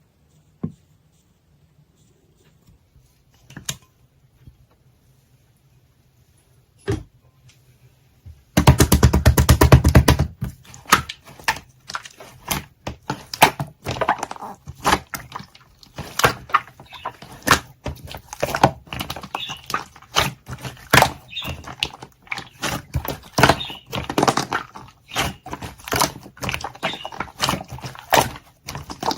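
Slime being handled: a few isolated clicks at first, then from about a third of the way in a dense run of sticky clicking and popping as the slime is pressed and squished, loudest just as it starts.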